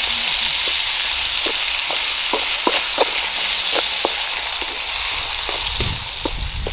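Strips of catfish and bell peppers frying in a wok over campfire coals: a steady sizzle. Through it comes a run of sharp clicks and scrapes, two or three a second, from a slotted spatula stirring against the pan.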